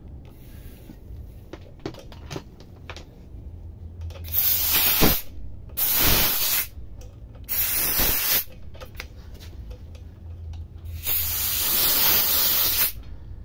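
Compressed air hissing out in four bursts at the air compressor's brass quick-connect coupler as the air hose is pushed on and worked into place: three short bursts of about a second each, then a longer one of about two seconds near the end. Light clicks of the metal fittings being handled come between the bursts.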